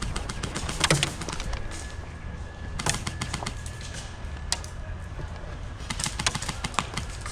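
Scattered sharp cracks and clicks, some in quick clusters, typical of airsoft guns firing across the field, over a constant low rumble on the microphone.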